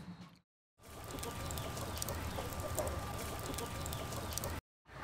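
Chickens clucking against outdoor ambience with scattered small clicks and a faint steady high tone, cut by two short gaps of dead silence, one about half a second in and one near the end.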